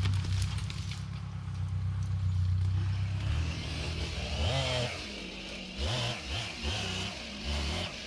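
An engine running steadily at a low pitch, then revving up and down several times from about three seconds in.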